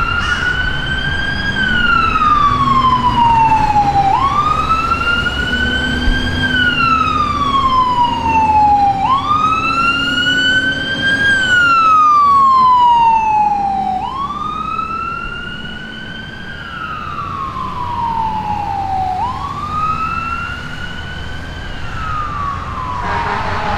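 Fire engine's siren sounding a slow wail, rising and falling about every five seconds, with the truck's engine running underneath. It is loudest as the truck passes about halfway through, then fades as it drives away.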